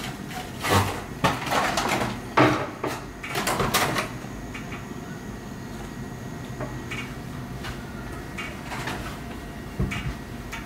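Kitchen handling sounds: a quick run of knocks, clatters and rustles over the first four seconds, then quieter with a few scattered clicks and a sharp knock near the end, like cupboard doors and things being set down.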